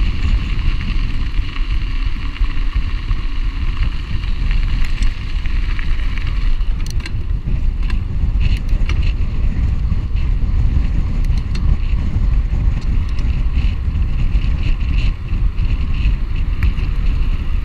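Wind buffeting the rider-mounted camera's microphone during a mountain-bike ride at speed, a steady heavy rumble with riding noise under it. From about five seconds in there are scattered sharp clicks.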